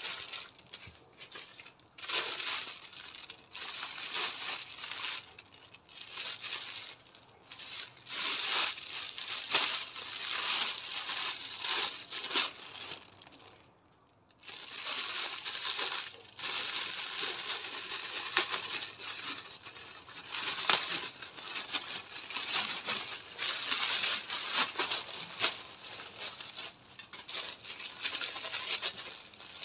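Plastic poly mailer bags and clear plastic packaging crinkling and rustling as hands handle and open them, in irregular crackles with a brief pause about halfway through.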